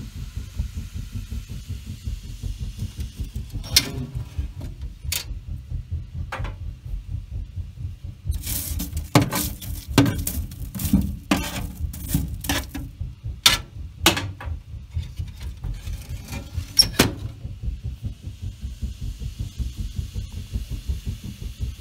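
Kuzine cook stove with its fire lit and kettles heating on top: a steady low throbbing rumble with a faint hiss. From about four seconds in to about seventeen seconds in come sharp clicks and knocks, thickest in the middle.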